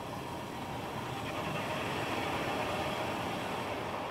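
Automatic car wash machinery running, a steady rushing noise heard from inside the car, swelling slightly partway through.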